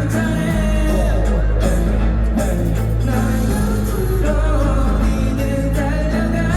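A K-pop song with singing over a heavy, steady bass, played loud through a concert sound system.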